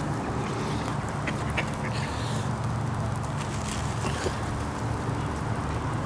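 Mallard ducks quacking in a group, a steady low chatter.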